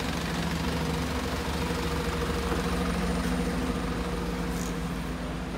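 Airport apron bus engine idling with a steady low hum.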